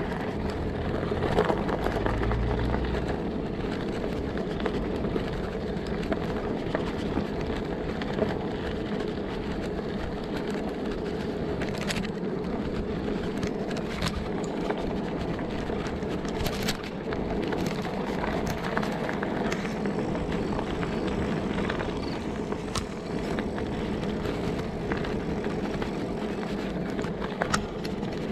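Bicycle tyres rolling over a gravel path, a steady crunch mixed with wind noise, with scattered sharp clicks from stones.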